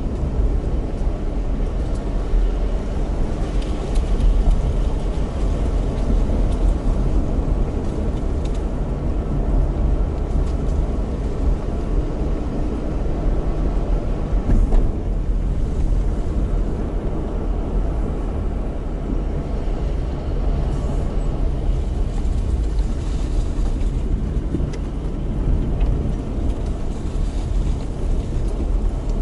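Car cabin noise on a slow uphill drive: the engine pulling with the four-speed automatic held in second gear, under a steady low rumble of tyres on the road.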